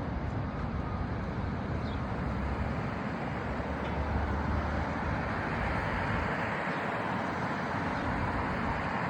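Steady vehicle road noise: an even low rumble with a hiss above it, no distinct events.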